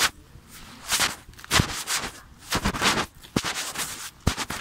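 Footsteps of a person in sneakers walking on an asphalt path: short scuffing steps about once a second, with a couple of sharper taps.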